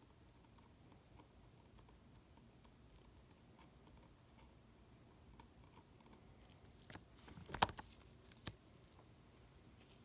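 Faint ticks of fine metal tweezers working at a circuit board, then a short cluster of sharper clicks with some handling noise a little past two-thirds through.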